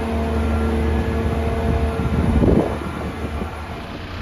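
Diesel engine of a boatyard travel lift running steadily while the boat hangs in its lifting straps, with a short louder rush about two and a half seconds in.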